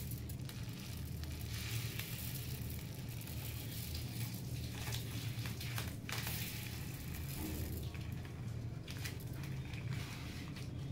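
Crinkling of a small plastic spice packet and light clicks as spices are tipped into a steel tumbler, over a steady low hum.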